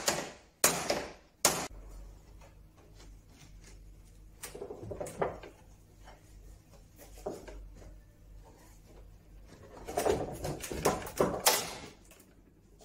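Two sharp hammer blows on the wooden end of a mahogany sleigh bed in the first couple of seconds, knocking a glued mortise-and-tenon joint apart. This is followed by scattered wooden knocks, scrapes and creaks as the loosened bed end is worked by hand, busiest around ten seconds in.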